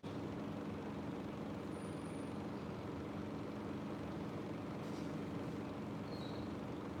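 Steady low background hum with no speech.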